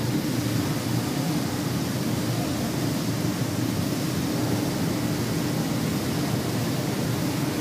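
Flattening rolling mill running: a steady machine hum with a faint low tone, even throughout, with no knocks or strikes.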